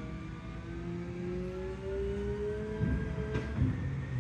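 Recycling truck's engine revving, its pitch rising and then easing off, with a few clunks about three seconds in.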